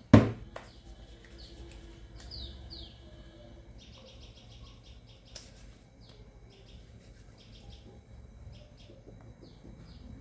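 Small birds chirping: short high falling chirps scattered throughout, with a quick trill of rapid repeated notes about four seconds in. A single sharp knock right at the start is the loudest sound.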